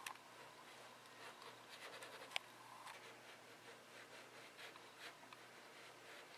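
Very quiet room with faint rustling and a few light clicks from a computer mouse being slid across the desk.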